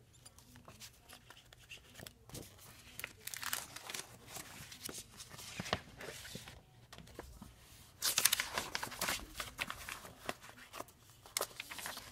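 Paper sheets and a folder being handled and flipped close by, rustling and crinkling in irregular bursts, loudest about eight seconds in.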